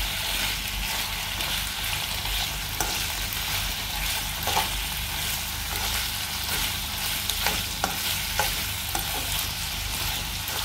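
Shredded boiled chicken sizzling in oil in a non-stick pan while a spatula stirs and turns it. A few sharp taps and scrapes of the spatula on the pan sound through the steady sizzle.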